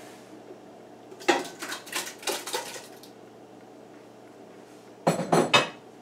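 A glass mixing bowl and a kitchen utensil clinking and scraping against a large stainless steel saucepan as chopped tomatoes are emptied into it. A run of clatters comes about a second in, then a brief burst of ringing clinks near the end.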